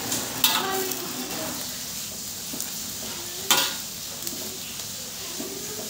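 Mustard greens being stirred with a fork in an aluminium wok, over a steady sizzle and hiss of the little water in the hot pan. The fork knocks sharply against the wok twice, about half a second in and again about three and a half seconds in.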